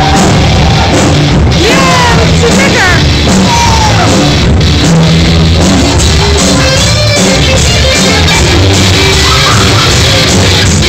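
Rock band playing live and loud: electric guitar, bass and drum kit, recorded rough and overloaded.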